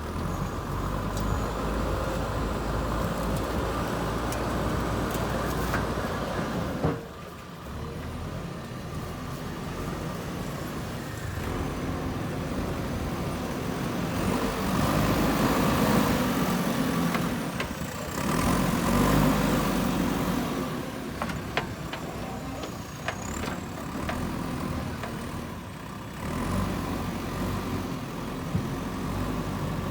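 Diesel engine of a JCB 3DX backhoe loader running steadily, working harder and louder for a few seconds in the middle, with a few short knocks later.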